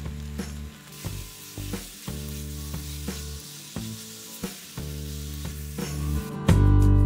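Chicken, potatoes and chopped banana flower sizzling in oil in an iron wok while a metal spatula stirs them, with sharp clicks and scrapes of the spatula against the pan. Soft background music plays underneath and turns loud near the end.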